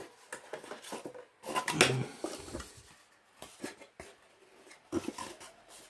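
Stiff cardboard perfume box and its folded card insert being handled: a string of light taps, scrapes and rustles of card, loudest about two seconds in, with a sharp tap near the end.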